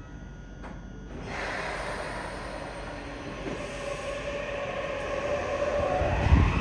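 Yokohama Municipal Subway 3000R-series train with a Mitsubishi IGBT-VVVF inverter starting to pull away from the platform. A broad rushing noise comes in suddenly about a second in, a steady tone sets in, and near the end the inverter's whine begins to rise in pitch as the cars gather speed, with heavy low thumps as they pass.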